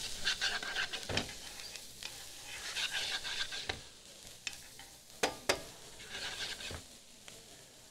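Diced onion and carrot sizzling in butter and olive oil in a sauté pan while a utensil stirs and scrapes them around, with a few sharp knocks, two close together just past the middle.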